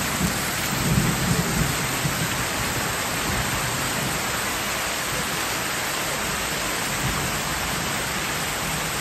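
Heavy tropical rain pouring steadily, with a low rumble of thunder in the first couple of seconds.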